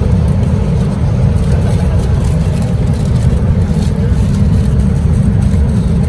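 Steady cabin noise of an airliner in cruise: a constant low rumble of engines and rushing air with a fainter hiss above it.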